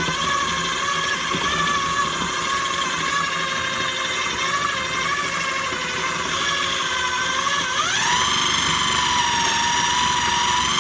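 Electric food grinder running as it grinds zucchini: a loud, steady motor whine that wavers in pitch, then rises sharply near the end and holds higher.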